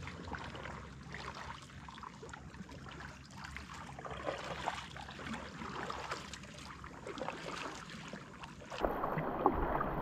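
Kayak paddle strokes with small splashes and water lapping as a sea kayak is paddled slowly along. About a second before the end, the sound cuts to rain falling on the water, a dense pattering with wind rumble.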